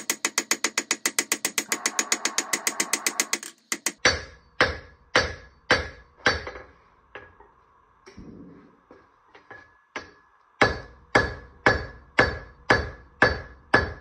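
Hand hammer striking hot wootz steel on a steel anvil, forging a chef knife blade, with a ring after each blow. A very rapid run of blows comes first, then slower blows about two a second, a lull of a few light taps, and steady blows again near the end.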